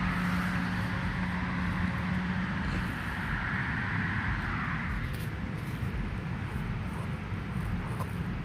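Road traffic: a vehicle going past, its engine hum stopping about three seconds in and its tyre noise fading by about five seconds, over a steady low outdoor rumble.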